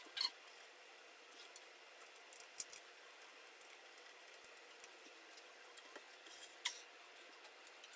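Faint, scattered light clicks and taps of a screw being started by hand into a pre-drilled hole during flat-pack furniture assembly, a few sharp ticks spread out with quiet between.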